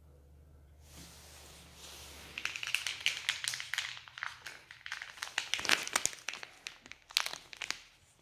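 Plastic treat packaging crinkling and crackling as it is handled, in irregular bursts that start about two and a half seconds in.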